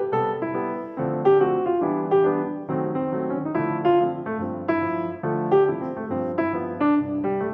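Background piano music: a light melody of plucked-sounding notes with chords, a new note struck about every half second.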